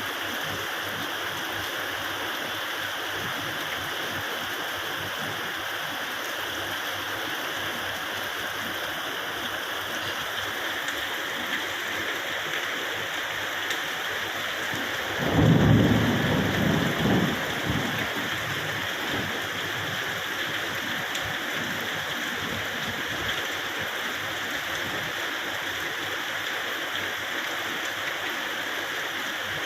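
Steady rain falling, with a loud low rumble of thunder about halfway through that fades over a few seconds.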